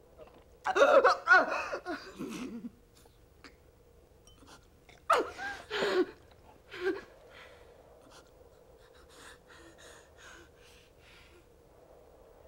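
A woman gasping and coughing in distress as she forces down a drink: two loud bouts of strained, voiced gasps, a short one after them, then faint breathing.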